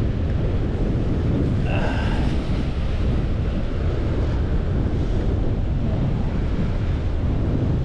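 Wind buffeting the microphone over the steady wash of sea surf, with a brief high-pitched tone about two seconds in.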